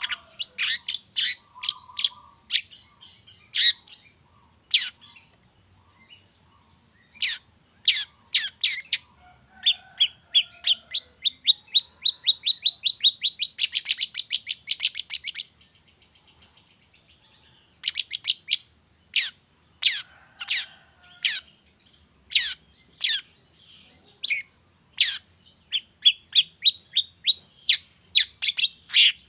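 Long-tailed shrike singing: a string of sharp, high calls, then about ten seconds in a fast run of repeated notes, about seven a second, that breaks into a harsh buzzing chatter. After a short lull the sharp calls resume.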